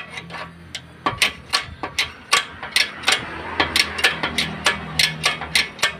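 Red hydraulic bottle jack being pumped by hand to raise a car: a steady run of sharp metallic clicks from the pump handle and plunger, about three a second, one or two with each stroke.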